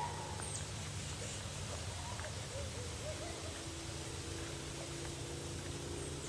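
Quiet woodland ambience: a steady low hum throughout, with a few faint short chirps in the first half and a faint steady tone that comes in about halfway through.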